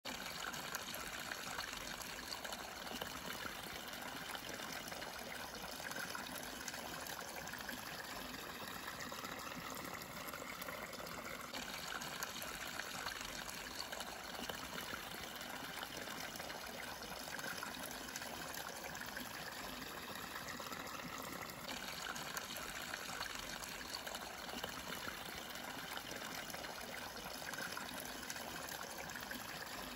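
Snowmelt water running and trickling steadily.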